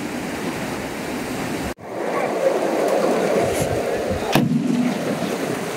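Steady rush of water in an irrigation canal at its sluice gate, breaking off for an instant about two seconds in, with a short click a little past four seconds.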